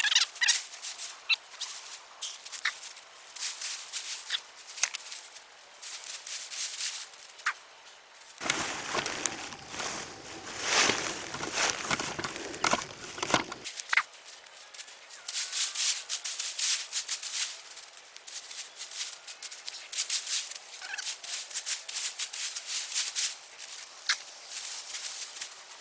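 Irregular crisp rustling, crunching and scraping of dry potato foliage and soil being worked by hand. There is a denser, louder stretch of rustling noise for about five seconds in the middle.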